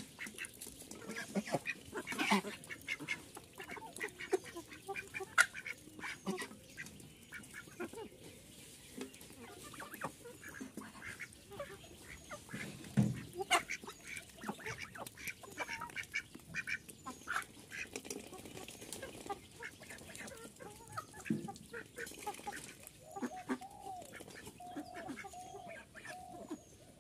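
Domestic ducks and geese feeding together from a metal pan: scattered quacks and honks over many short clicks and taps of bills in the pan and on the ground, with a dull thump about 13 seconds in.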